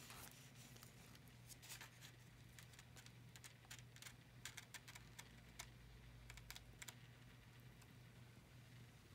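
Faint, irregular small clicks and taps from a savannah monitor lizard feeding at a foam plate of raw egg, its tongue and claws working at the plate.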